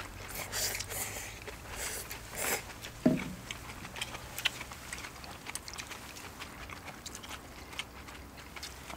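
Eating noises from people having noodle soup: soft chewing and mouth sounds with light clicks of utensils and dishes, and one sharper knock about three seconds in.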